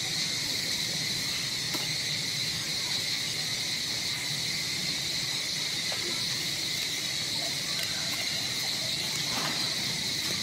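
Insects chirring in a steady, unbroken chorus: a high, even drone with no pauses.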